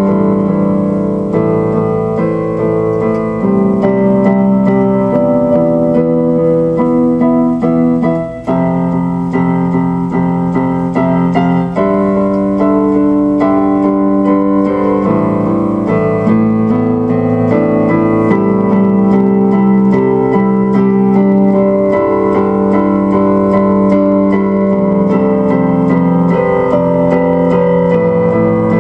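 Piano music played on a keyboard: held chords that change every few seconds.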